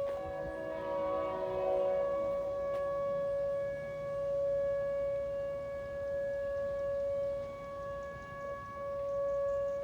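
Outdoor tornado warning siren sounding one steady wailing pitch, its loudness swelling and fading about every two and a half seconds as the siren rotates. A second, chord-like tone sounds along with it for the first couple of seconds.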